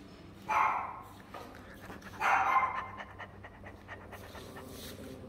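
Yorkshire terrier making two short, breathy sounds about a second and a half apart, followed by faint ticking.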